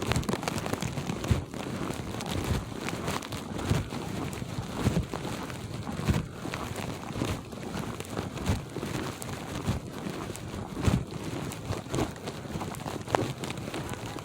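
Footsteps crunching through snow at a steady walking pace, a soft thud about once a second over a crackling rustle.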